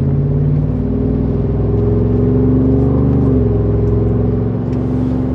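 Ford F-150's 5.0 V8 running through a Borla cat-back exhaust while driving, heard from inside the cab: a steady exhaust drone whose pitch drops a little about three seconds in.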